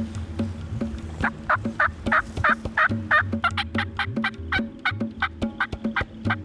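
Turkey call yelping at turkeys: a long series of short hen yelps that begins about a second in and speeds up partway through.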